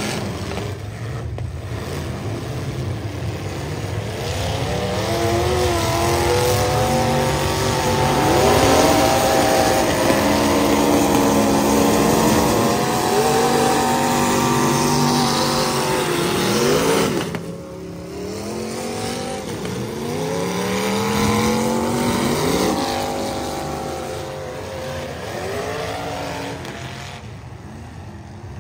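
Several demolition derby cars' engines revving up and down at once, their pitches rising and falling over one another. The sound drops away briefly about two thirds of the way through.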